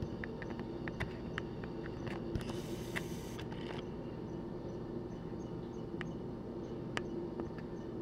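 Steady low background hum with scattered light clicks, mostly in the first second and a half and once near the end, and a short rustling hiss about two and a half seconds in.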